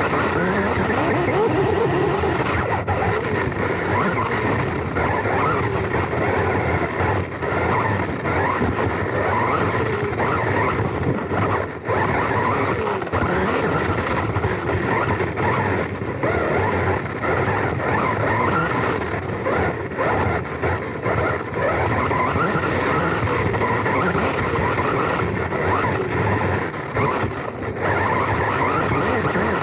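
On-board sound of a Serpent SDX4 Evo 4wd electric RC buggy racing: the motor and drivetrain whine rising and falling in pitch with the throttle, over a constant rattle and rumble from the chassis and tyres on the track, with brief dips in loudness now and then.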